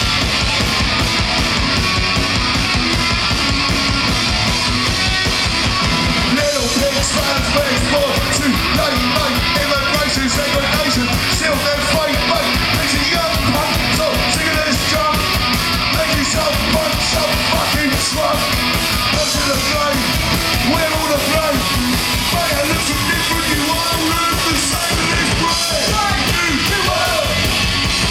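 Live rock band playing loud: electric guitars, bass and a busy drum kit, with a male singer's vocal line coming in about six seconds in.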